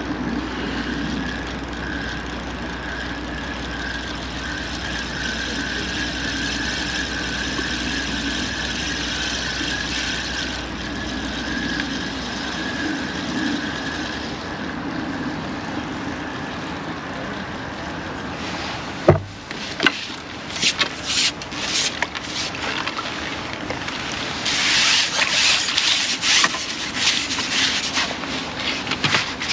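Fixed-spool reel being wound steadily against a hooked skimmer bream, a continuous whirring whine. From about two thirds in come sharp clicks and bursts of splashing as the fish reaches the surface and the landing net goes into the water.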